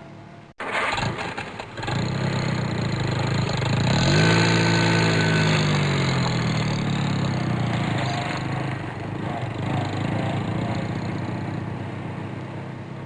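A car engine, of the kind heard in supercar start-ups, cranked by the starter for about a second and catching, then flaring up in revs about four seconds in and dropping back to a steady idle.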